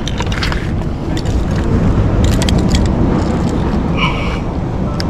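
A steady low rumble of wind and surf buffeting the microphone, swelling a little midway. Over it come scattered rustles and clicks of hands working the buckle and pouch of a shoulder tackle bag, with a short squeak near the end.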